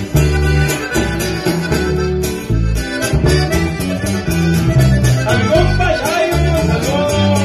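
Live norteño band playing a corrido: accordion carrying the melody over strummed strings, a deep bass line and a steady drum beat.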